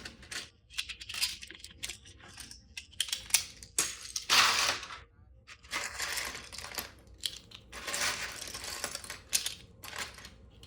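Loose plastic LEGO bricks clattering as a hand rummages through a pile and pushes pieces aside: a run of quick clicks with a few louder rattling bursts, the loudest about four seconds in.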